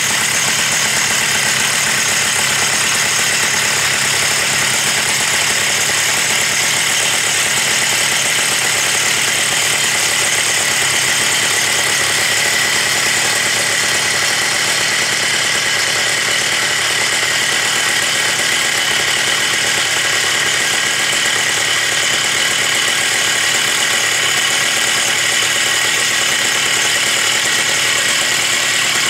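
Big 121cc two-stroke Stihl 084 Magnum chainsaw engine running at a steady speed, with a fast, even firing rhythm and no revving.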